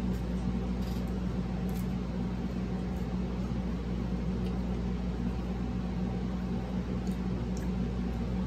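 Steady low mechanical hum, like a fan or appliance running in the room, with a few faint light clicks from a fork and plate while eating.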